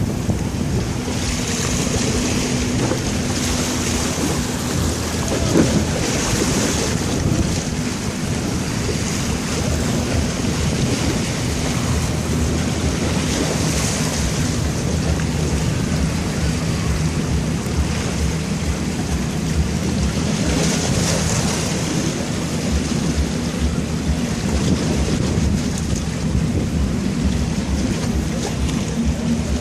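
Steady rush of wind and sea water, swelling in hiss every few seconds, with a faint steady low hum underneath.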